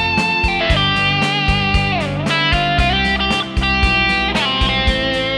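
Overdriven lead electric guitar from a PRS Custom 22 played direct through a Line 6 POD HD, picking a melodic line of held notes. About two seconds in one note dips in pitch and comes back, and near the end a long note is held with a slight wavering vibrato.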